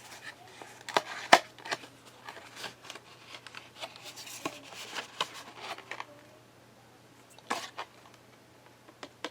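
An M.2 SSD being taken out of its packaging: a run of sharp clicks, taps and scrapes for about six seconds, then a few scattered clicks.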